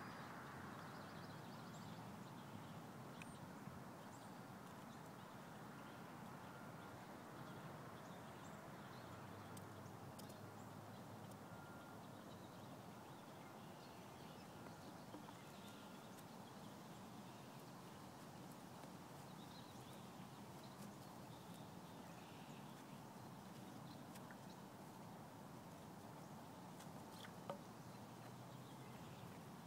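Near silence: faint steady outdoor background noise, with a single faint click near the end.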